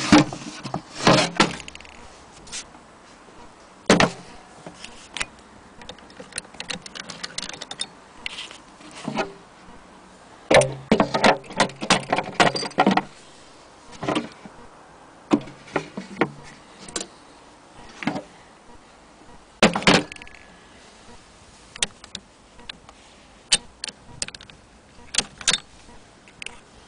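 Irregular knocks, clicks and rattles of hands handling an antique hand-crank sewing machine and its wooden case, with a quick run of clicks about ten seconds in.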